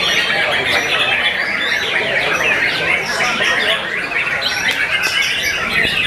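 A dense chorus of many caged white-rumped shamas (murai batu) singing at once, a continuous tangle of quick overlapping notes.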